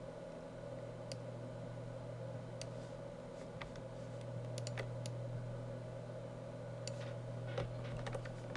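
Scattered, irregular clicks of a computer mouse and keyboard, faint, over a steady low hum.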